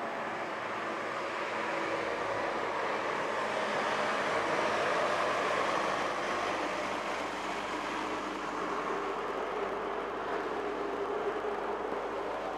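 Small road tourist train driving slowly past: its engine running and tyres rolling on the road as the carriages go by, a little louder about halfway through.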